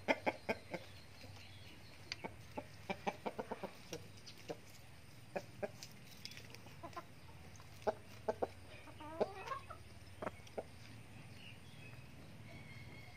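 Backyard chickens clucking: short sharp clucks in quick runs, several clusters in the first ten seconds, with a brief wavering call about nine seconds in.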